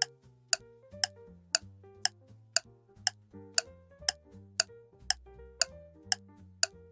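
Clock-style ticking sound effect counting down the time to answer a quiz question, about two ticks a second, over soft background music with low held notes.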